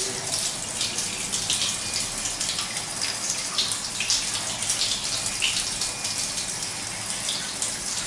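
Water running through an open wall-mounted hand-turned stop tap, a steady hiss with irregular small splashes. Water leaks out around the handle's spindle, which leaks only while the tap is open.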